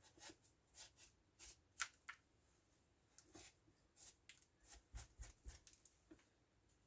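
Faint handling noises as a chainsaw is cleaned: a dozen or so brief scrapes and clicks, with a few soft low knocks about five seconds in.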